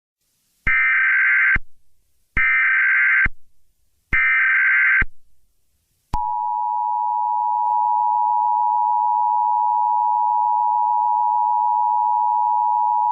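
Emergency Alert System tones. First come three short bursts of digital SAME header data, each just under a second. About six seconds in, the steady two-tone EAS attention signal (853 and 960 Hz) begins and holds.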